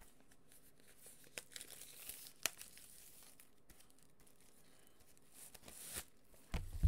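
Plastic wrapping on a pack of comic books being torn open and crinkled by hand, with a few sharp crackles spread through it and a thump near the end.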